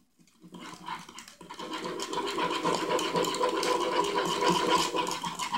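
A spoon stirring quickly and scraping against the sides of a cup, mixing melted butter, strawberry drink powder and milk into a thick paste. The stirring starts about half a second in and keeps up at a fast, even pace.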